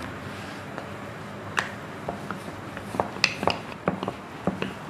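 Wooden rolling pin knocking and clicking against a round wooden board as dough is rolled out, a string of sharp, irregular clicks that start about a second and a half in.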